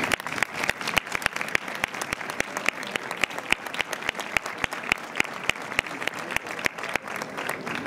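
Audience applauding, with distinct claps close by standing out several times a second over the wider clapping.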